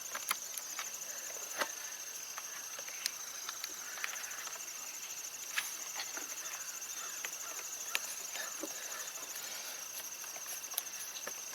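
A steady high-pitched insect trill runs throughout. Scattered light clicks and taps cut through it, about a dozen sharp ticks spread over the time, from hand work on a motorcycle battery terminal bolt.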